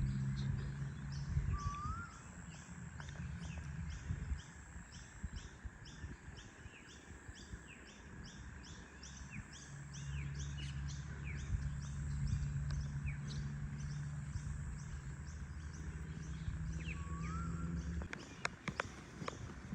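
Forest birds chirping in a regular high series, about three chirps a second, with a short rising whistled call near the start and again near the end. A low steady hum runs under the second half, and a few clicks sound near the end.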